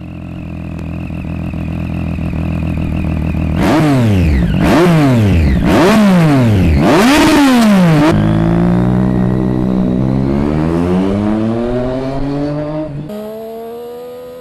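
Motorcycle engine running, then revved four times in quick succession, its pitch shooting up and dropping away each time. It then runs steadily with the pitch slowly climbing, and steps up to a higher steady note near the end.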